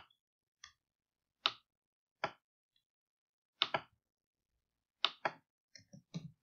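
Computer mouse clicks, single and in quick pairs, about a second apart, followed near the end by a few lighter keyboard keystrokes.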